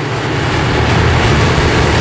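Diesel locomotives of an approaching CSX freight train, engines running with a heavy low rumble that fades in and grows louder over the first second.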